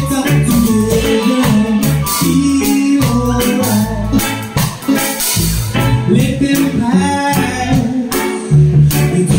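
Live band playing: electric keyboard, electric bass guitar and a drum kit with cymbal hits, over a moving bass line.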